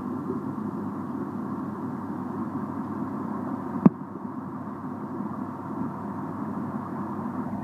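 Steady low hum and rush of water from a stingray tank's pump and filtration, with one sharp click about four seconds in.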